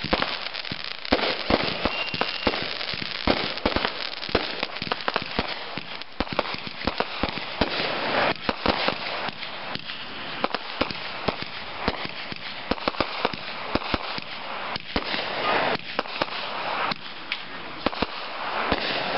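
Aerial fireworks bursting in a rapid, continuous string of sharp bangs and crackles, several shells often going off close together.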